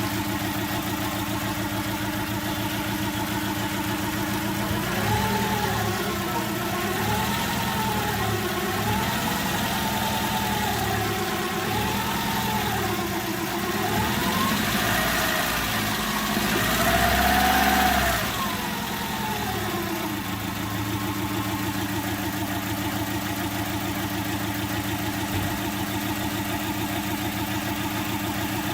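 Daewoo Kalos 1.2i four-cylinder petrol engine running on only three cylinders, the fourth misfiring from a defective ignition coil. It idles, is revved up and down repeatedly from about five seconds in, is loudest near the end of the revving, and settles back to idle about twenty seconds in.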